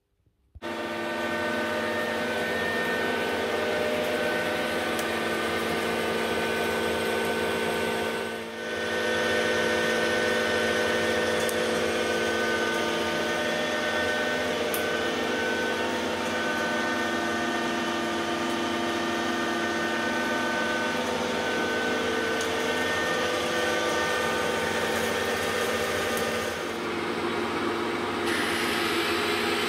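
Metal lathe running, its drive gears whining in several steady tones as the chuck turns a metal workpiece. Near the end it drills into the spinning workpiece with a bit fed from the tailstock, and the sound turns brighter and noisier.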